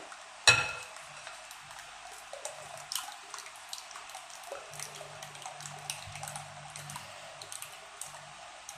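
Liquid batter being poured into a bowl and stirred, a faint steady trickle with scattered light clicks of the utensil. A short sharp clink about half a second in is the loudest sound.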